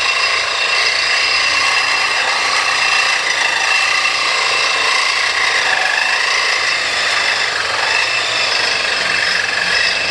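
Power tool cutting through the metal rear brake bracket on the axle, running steadily with a constant high whine and a harsh grinding hiss.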